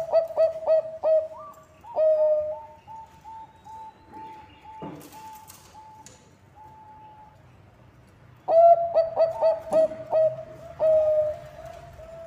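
Bangkok zebra dove (perkutut) singing: two loud phrases of quick cooing notes, one at the start and one about two-thirds through, each closing on a longer drawn-out coo. Fainter, higher coos repeat in between, with a brief knock about five seconds in.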